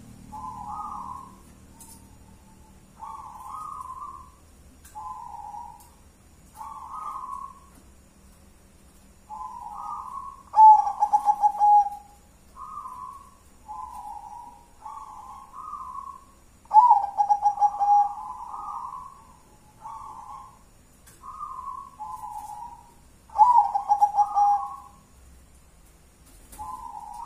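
Zebra dove (perkutut) cooing: a steady string of short rolling coo phrases every second or two. Three louder, fuller song phrases come near the middle, about two-thirds through and near the end.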